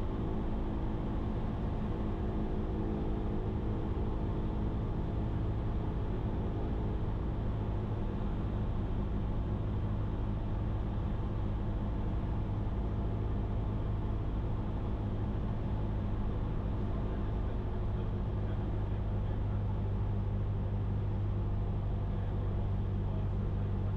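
Cessna 172's piston engine and propeller droning steadily in flight, a constant low hum that does not change.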